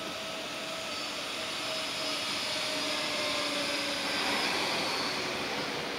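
Railway station ambience: a steady rushing noise with a faint droning hum, swelling slightly about four seconds in and then easing off.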